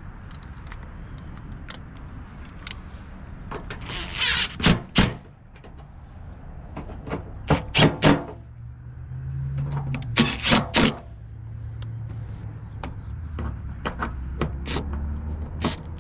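A plastic inner fender liner being worked into a truck's wheel well: clusters of sharp knocks and clicks, loudest about a quarter of the way in and around halfway, with quicker light ticks near the end, over a steady low hum.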